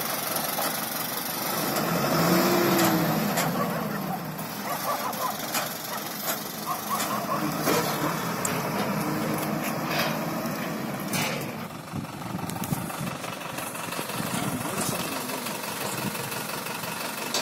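Light goods truck's engine running as the truck drives off and manoeuvres, with a steady hum and a few sharp clicks.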